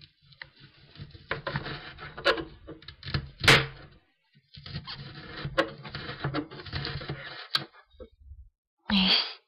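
Kitchen knife slicing a scored green onion on a plastic cutting board: a run of rapid small cuts and taps of the blade on the board, in two spells with a short pause about four seconds in. A short burst of voice near the end.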